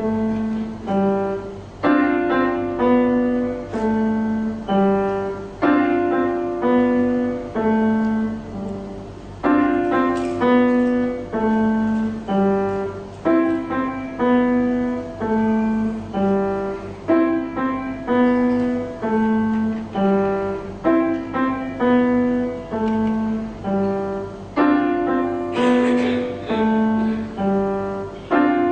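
A child playing a grand piano solo: a melody of distinct notes in short phrases, each note struck and decaying, the phrases repeating every second or two.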